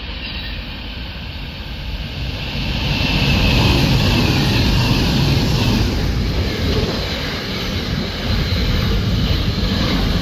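Intermodal freight train passing at speed: the diesel locomotive approaches and grows loud over the first few seconds, then the container wagons roll past with steady wheel-on-rail noise.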